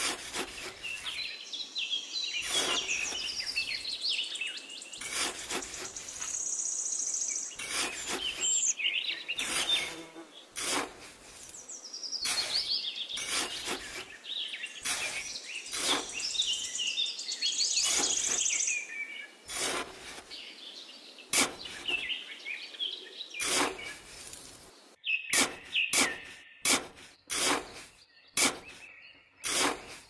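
Small metal hand trowel scraping and digging into damp sand in short, irregular strokes, quicker near the end, while birds chirp throughout.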